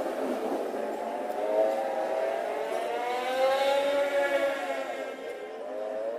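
A motor vehicle engine going by, its pitch rising and then falling over a few seconds.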